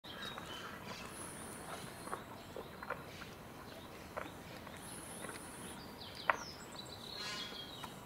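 Outdoor ambience: scattered light clicks, with high chirps and whistles from birds and a rapid trill near the end.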